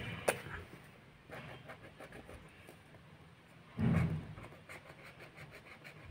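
Felt-tip sketch pen scratching and tapping on card paper in short strokes during colouring, with a sharp click just after the start and a louder low thump about four seconds in.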